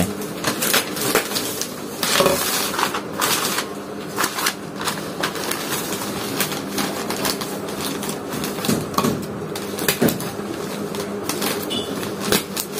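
A sheet of newspaper being rolled and folded by hand, rustling and crinkling in irregular crackles, with a faint steady hum underneath.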